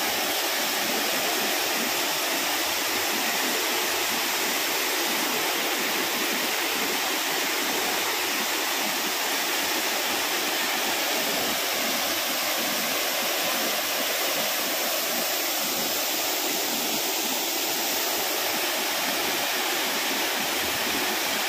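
Waterfall pouring over rock ledges into a plunge pool: a steady, unbroken rush of falling water.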